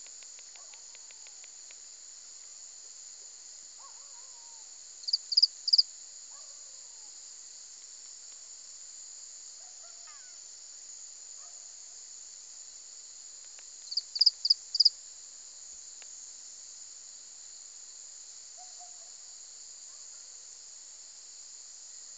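Steady, high-pitched, cricket-like insect chorus. Twice, about nine seconds apart, a burst of three or four loud, sharp, high chirps cuts through it.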